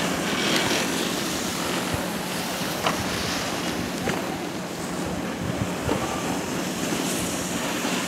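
Steady rushing noise of a moving chairlift ride, with wind on the microphone, a low steady hum and a few sharp clicks from the lift.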